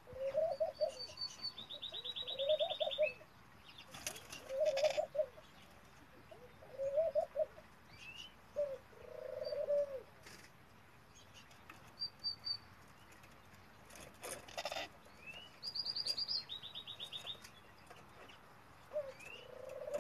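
Hybrid Ringneck × European Turtle Dove male cooing, a low call repeated about six times with pauses between. Twice a high, fast chirping trill from another bird cuts in, and there are short bursts of wing flapping.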